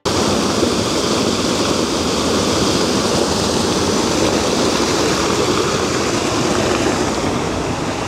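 Steady rushing of the Trusetal Waterfall, a 58-metre artificial waterfall, as water plunges down its rock face.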